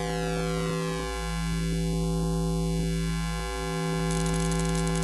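Electronic synthesizer drone: held tones over a deep bass, with a slow sweeping phaser-like whoosh moving up and down through it. A high hiss joins about four seconds in.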